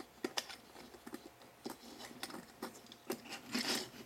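Plastic parts of an Ironhide action figure clicking and knocking as hands fiddle with it, with a denser scraping rustle near the end.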